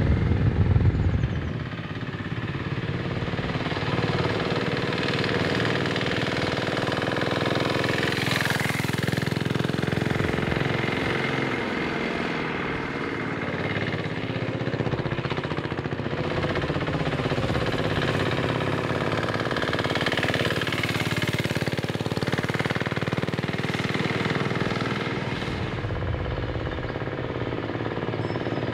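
Jintian 165F 3 hp single-cylinder air-cooled diesel engine of a mini bike running under way, with a clattering diesel knock. Its pitch rises and falls as the bike changes speed, dipping in a sweep twice.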